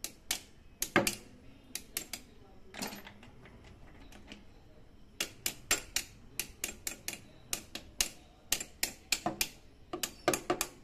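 Sharp, irregular metal-on-metal clicks of a 5 mm Allen key being worked in short turns inside a rust-seized, broken spark plug on a Yamaha FZ's engine to unscrew it. A few scattered clicks at first, then a quicker run of about three to five a second from midway on.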